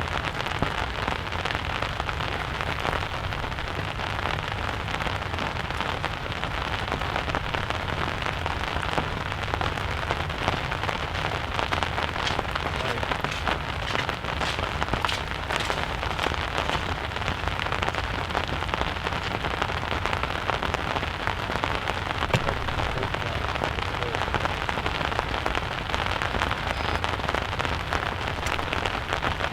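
Steady rain falling, a dense even hiss of many drops with sharper individual drop hits scattered through it.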